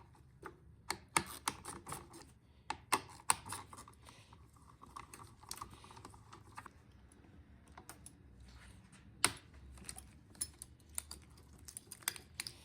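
Irregular light clicks and taps of hand tools against small metal and plastic parts as the carburetor is taken off a two-stroke leaf blower. There is a quicker run of small ticks in the middle and one sharper click later on.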